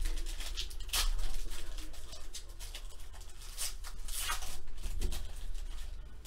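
Foil wrapper of a Panini Select Soccer trading-card pack crinkling and tearing as it is ripped open by hand: a run of sharp crackles and rustles, loudest about a second in.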